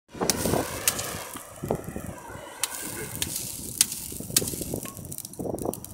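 Burning charcoal in spinning ember poi crackling, with several sharp pops over a low, uneven rushing noise.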